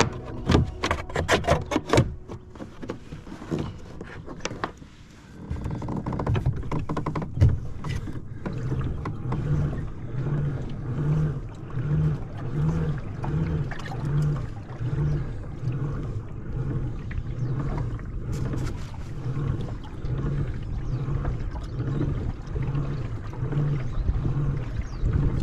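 Pedal drive of a Native Watercraft Slayer Max kayak running as it is pedalled: a low hum that swells a little more than once a second with each pedal stroke. A few sharp clicks and knocks come in the first two seconds.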